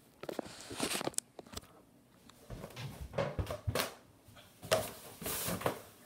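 Irregular rustling and light knocks of someone moving about and handling things, in a string of short, scattered noises with brief gaps between them.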